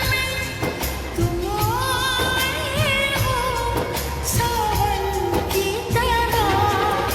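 Background music: a South Asian pop song, a singer's wavering melody over a steady beat.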